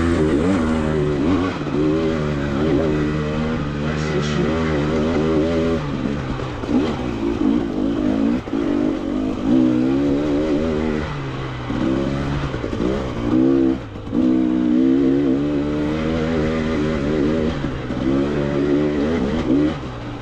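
Dirt bike engine revving up and down over and over as the throttle is opened and eased off, its pitch rising and falling every second or two with short dips in between.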